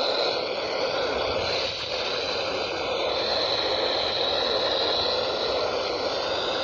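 Steady radio static hiss from a weather radio receiver with no clear station coming through.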